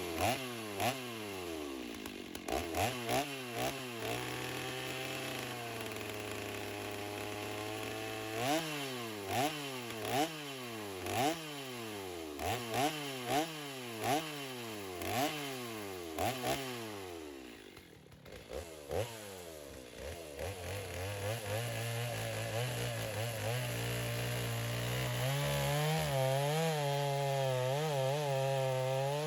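Stihl MS 290 two-stroke chainsaw idling and blipped up and down in quick repeated revs. After a brief lull it runs steadily, then is held at high speed near the end, as in a cut into the log.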